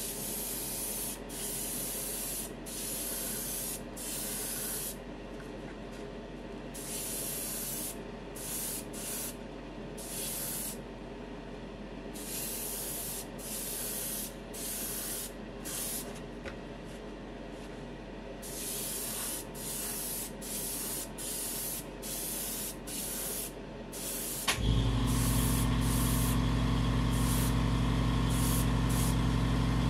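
Airbrush spraying enamel paint in short bursts of hiss, roughly one a second, as the trigger is pressed and released. Near the end an air compressor cuts in with a click and runs with a steady hum that is louder than the spraying.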